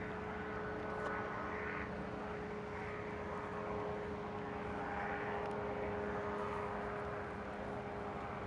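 Boeing 787 Dreamliner's jet engines heard from the ground as it flies a pass over the airfield: a steady engine noise with a constant hum running through it.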